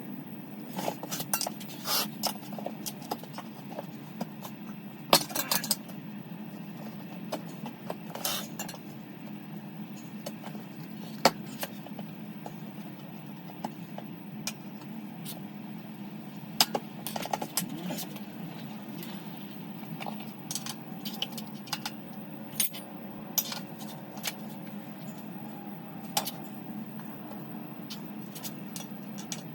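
Irregular metallic clinks and clicks of hand tools being worked on a dirt-bike wheel during a tyre change, over a steady low hum, with the audio played back sped up.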